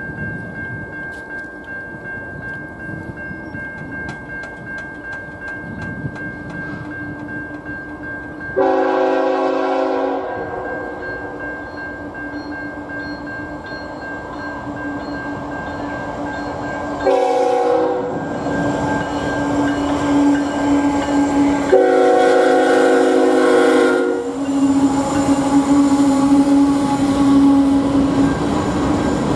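Railroad crossing bell dinging at first, then a diesel freight locomotive's air horn sounding three blasts, long, short and long, as the train approaches the crossing. Near the end the locomotive and its loaded hopper cars roll past with a steady rumble and wheel noise.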